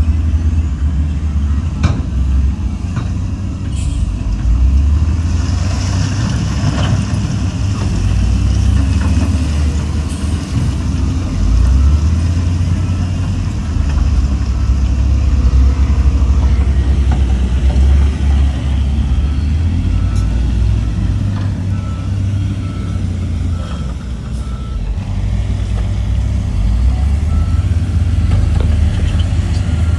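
Heavy diesel machinery running: the steady low rumble of a dump truck and wheel loader at work, with a short run of reversing beeps about two-thirds of the way in.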